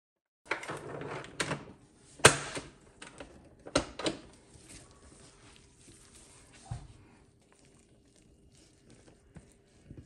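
Clanks and knocks of a stand mixer's stainless steel bowl and wire whisk being handled as the whisk is taken out of the whipped body butter and the bowl lifted off, the loudest knock a little over two seconds in. Softer small knocks and scrapes follow near the end, with a faint steady hum under them.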